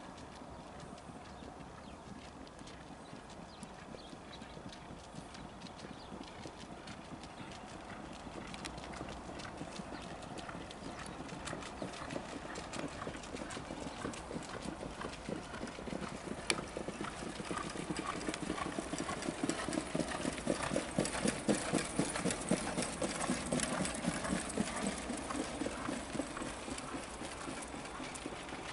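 Hoofbeats of two trotters pulling sulkies at speed on a sand track: a rapid, dense clatter that grows louder as they approach, peaks about three-quarters of the way through, then eases as they pass.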